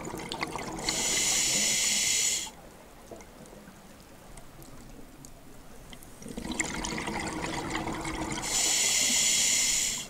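A scuba diver breathing through a regulator underwater: a loud hiss of an inhalation about a second in, a bubbling exhalation a few seconds later, then another inhalation hiss near the end.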